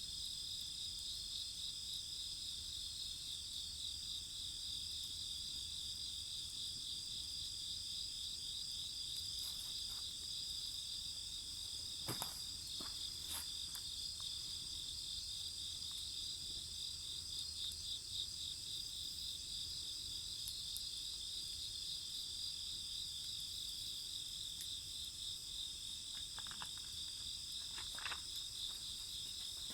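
A steady chorus of crickets and other night insects, several high trilling voices overlapping. A few sharp crackles from the wood fire come about twelve seconds in and again near the end.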